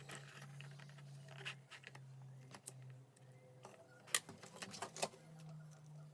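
Faint, irregular clicks and taps of small parts being handled and fitted into a hand-held RC transmitter, the sharpest click about four seconds in, over a low steady hum.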